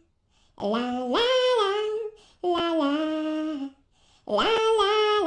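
A woman singing unaccompanied in three drawn-out phrases with short breaths between them, the notes held with vibrato; the first phrase slides up into its note.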